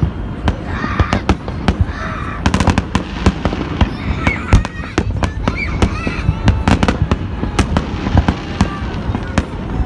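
Fireworks salute: a dense, irregular run of sharp bangs and crackling reports, many overlapping.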